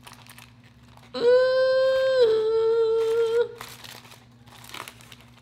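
A woman hums one held note for about two seconds, stepping down slightly in pitch halfway through. Aluminium foil crinkles faintly before and after as she unwraps a foil-wrapped taco.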